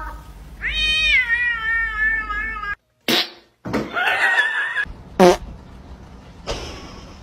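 A cat meowing in one long, drawn-out yowl that jumps up in pitch under a second in and then slowly falls, followed after a break by shorter cries.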